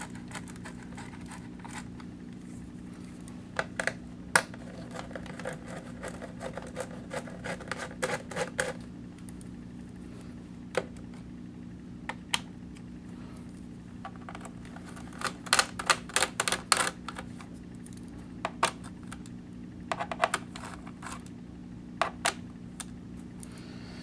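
A small screwdriver backing out the screws of a Toshiba Satellite S55D laptop's plastic bottom case. It gives irregular sharp clicks and short quick runs of ticking, over a steady low hum.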